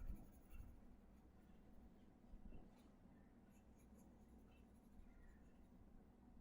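Faint scratching of sketching strokes on paper, a few slightly louder strokes about half a second and two and a half seconds in, over a low steady hum.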